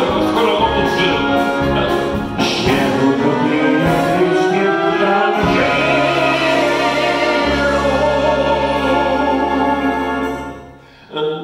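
Wind band playing a passage of music that settles about halfway through into a long held chord over a steady bass note. The chord fades out shortly before the end, and the band comes back in.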